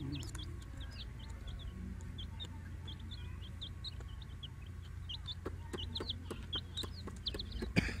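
A group of young chicks peeping continuously: many short, high-pitched chirps a second, overlapping one another. A few light clicks come in the second half, and a brief knock near the end.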